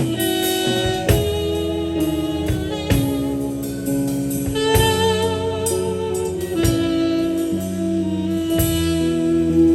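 Instrumental band music: a lead melody of held notes, some wavering, over bass and regular drum hits.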